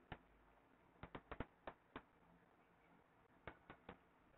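Near silence with about ten faint, short clicks in small clusters: a stylus tapping on a pen tablet while words are handwritten.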